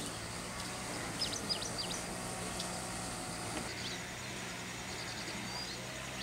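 Outdoor ambience: a few quick high bird chirps between one and two seconds in, then a fast, evenly repeating high ticking over a steady low hum.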